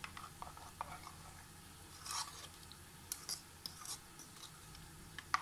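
Metal spoon scraping and tapping against a small bowl as thick yogurt and spice powder are stirred together: faint, scattered scrapes and clicks.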